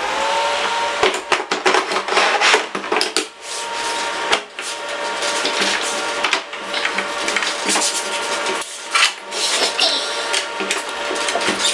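Cooling fans of an IBM IntelliStation POWER 285 workstation running with a steady whine, having just slowed from full speed after power-on. Repeated clatter and knocks of handling over the top.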